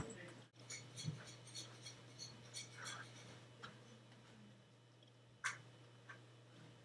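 Near silence: a faint steady hum with scattered soft clicks and rustles, and one sharper click about five and a half seconds in.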